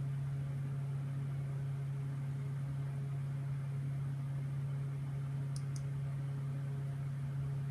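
Steady low machine hum with room noise, holding one level. Two quick light clicks close together a little over five seconds in.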